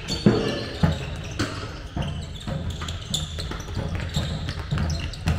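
Handball bouncing on a sports hall floor during play, several irregular thuds among players' running footsteps.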